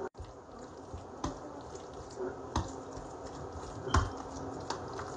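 Fork mixing tuna salad in a bowl, with soft wet stirring and three sharp clinks of the fork against the bowl about a second and a half apart.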